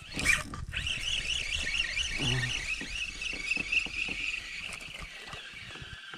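A sharp swish about a third of a second in, then a spinning reel cranked steadily on the retrieve, giving a wavering high whine that pulses several times a second and fades near the end.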